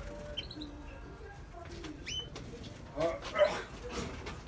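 Caged canaries calling: a few short, high, rising chirps, then a louder cluster of lower-pitched calls about three seconds in.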